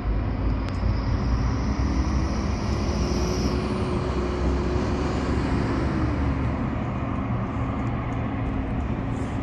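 Garbage compactor truck's diesel engine running with a steady low rumble. A faint whine rises and then fades away over the first few seconds.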